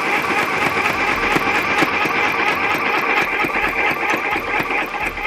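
A Multi-Stitch mini sewing machine runs steadily, stitching through four layers of denim with a fast, even mechanical clatter.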